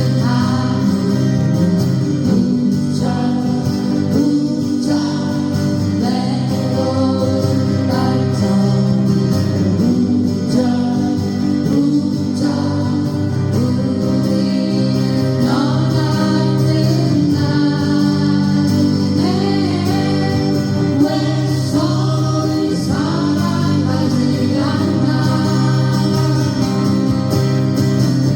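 A song sung live to acoustic guitar accompaniment, the sung phrases coming in over a steady strummed backing.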